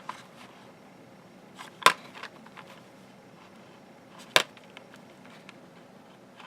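Small precision screwdrivers clicking as they are handled: two sharp clicks about two and a half seconds apart, with faint ticks between.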